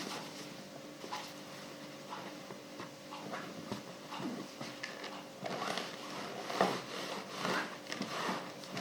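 Clothes being ironed: an iron pushed back and forth over fabric, the cloth rustling and sliding in a series of short strokes that grow busier about halfway through.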